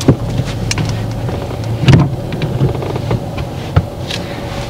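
Car cabin sounds: a steady low engine hum with a few sharp clicks and a heavier knock about two seconds in, after which the hum drops.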